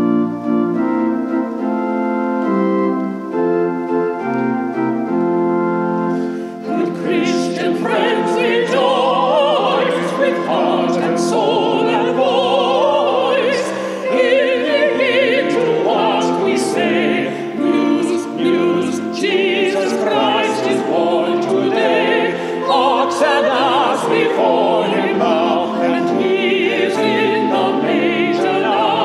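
Small vocal ensemble singing in classical style with strong vibrato, accompanied on keyboard. Held keyboard chords open the music, and the voices come in about seven seconds in.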